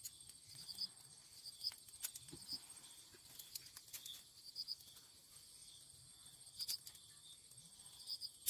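Faint insects chirping: short high chirps repeat every half-second or so over a steady high trill, with a few soft clicks.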